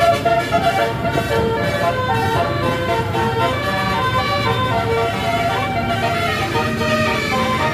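Multi-note Basuri telolet bus horn playing a quick tune, one short pitched toot after another, over the low steady noise of the running bus.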